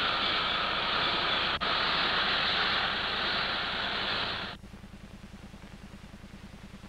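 Noise of a diesel freight train passing close, heard as a dull, hissy rush on an old film soundtrack. It cuts off suddenly about four and a half seconds in, leaving a quieter steady low hum.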